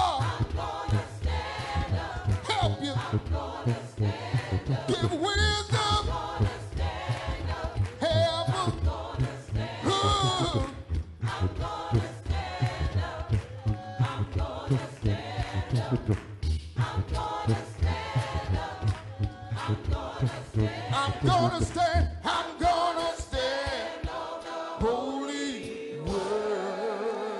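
Gospel choir singing a cappella over a steady low rhythmic pulse; near the end the pulse stops and the voices hold a long final chord.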